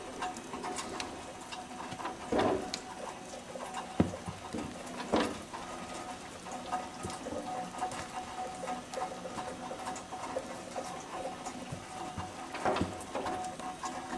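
Light, irregular pattering and ticking of wet snow falling outdoors, with a few louder knocks about two and a half seconds in, about five seconds in, and near the end.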